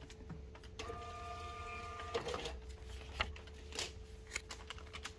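Receipt printer at a library checkout desk printing a due-date slip: a steady whir for about a second and a half, followed by a few scattered clicks and taps.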